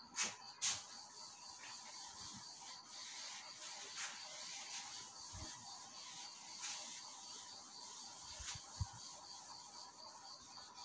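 Whiteboard eraser being scrubbed back and forth across a whiteboard, a steady rubbing sound. It opens with two sharp knocks about half a second apart.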